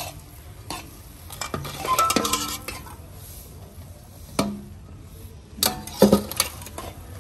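Metal spatula scraping and clinking in a kadhai of roasted gram flour, and a steel bowl knocking on the pan's rim as powdered sugar is tipped in for besan laddoos. Separate metallic clanks, a few with a brief ring, the loudest a little before six seconds in.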